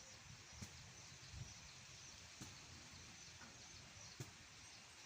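Near silence: faint outdoor background noise with three soft clicks spread through it.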